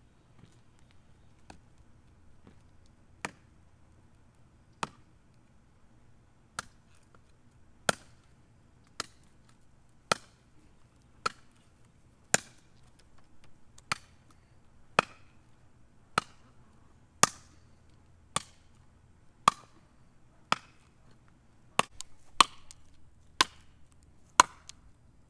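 Heavy bush knife forged from a lawnmower blade chopping into a piece of wood on a stump, about twenty sharp strikes roughly one a second. The strikes grow louder and come a little faster toward the end.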